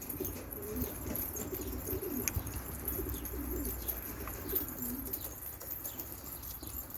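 Domestic pigeons cooing: low, warbling coos repeated in short phrases throughout.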